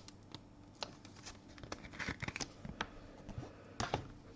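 Trading cards being handled: faint rustling and scattered light ticks of card stock and plastic card sleeves.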